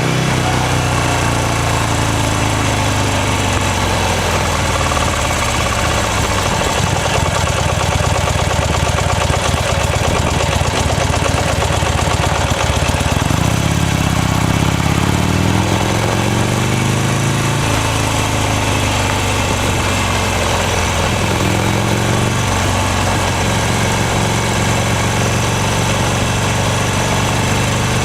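Buell XB9S Lightning's air-cooled V-twin engine: it winds down, runs low for several seconds as if idling or rolling slowly, then revs up and eases off a few times in traffic, over a steady rush of noise.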